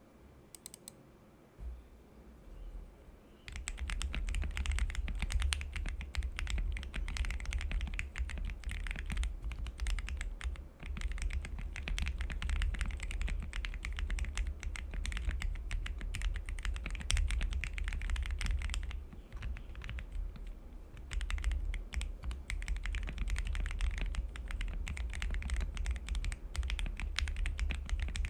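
Typing on an MW65 custom mechanical keyboard with lubed Akko Jelly Black linear switches, a polycarbonate plate and PBT Cherry-profile keycaps. A few separate key presses come first, then from about three seconds in a fast, continuous run of keystrokes, with a short lull around twenty seconds in.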